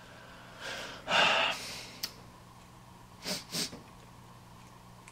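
A man breathing and sniffing through his nose as he smells something on his fingers: one long breath about a second in, then two quick sniffs a little after three seconds.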